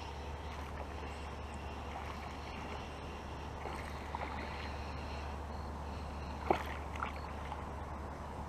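Kayak on a pond with a steady low rumble and faint water noise around it. A sharp knock on the kayak comes about six and a half seconds in, and a lighter one half a second later.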